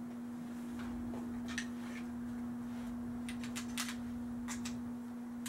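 A few faint clicks and knocks from a Daisy BB rifle being handled, over a steady low hum.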